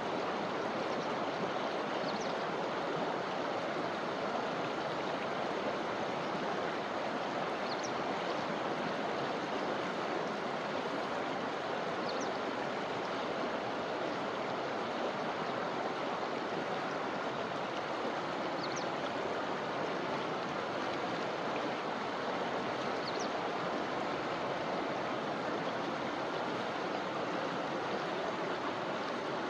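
River flowing through a forest, a steady, unbroken rush of water over stones. A few faint, short high chirps show through it, roughly every five seconds.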